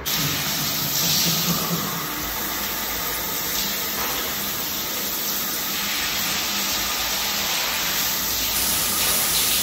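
Communal showers running: water spraying steadily from wall-mounted shower heads onto people and a tiled floor, a constant hiss in a tiled room.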